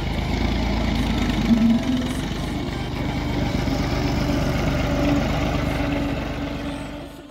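Massey Ferguson tractor's diesel engine running as the tractor drives past close by, loudest about a second and a half in and fading near the end.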